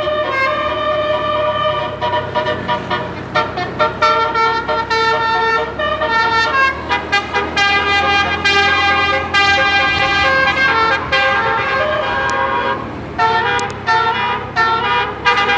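Basuri-type 18-note telolet musical air horn on a bus playing a melody, one horn note stepping to the next in quick succession with short breaks. A faint low steady hum lies underneath.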